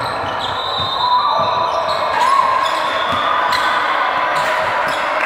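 A basketball being dribbled on an indoor court: irregular thuds of the ball on the floor over the steady, echoing background noise of players and spectators in a large hall.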